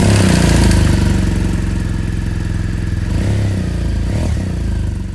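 Motorcycle engine running steadily with a low, pulsing note, dying away at the end.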